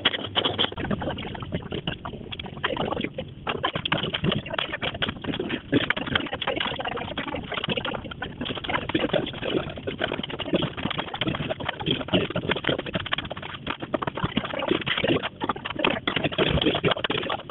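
A knife chopping an onion on a plastic cutting board: a rapid, uneven run of knocks of the blade striking the board.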